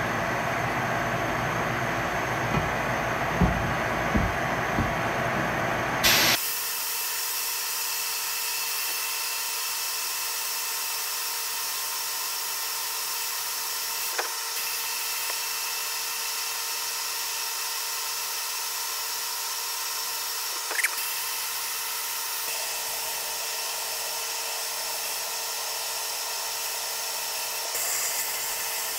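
Sandblasting cabinet: for the first six seconds a steady lower rush of air with a few short knocks as the pressed-steel toy truck panel is handled. Then the blast gun opens up, and an abrasive blast hisses steadily against the panel, stripping rust and old paint, with a couple of brief clicks along the way.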